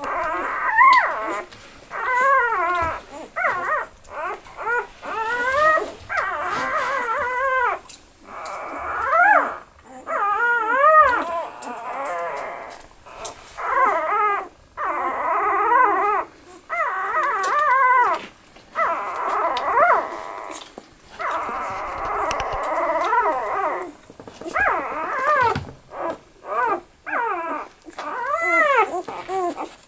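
Newborn Australian Shepherd puppies crying and squealing: a string of short, high whining cries that rise and fall in pitch, one after another with only brief pauses.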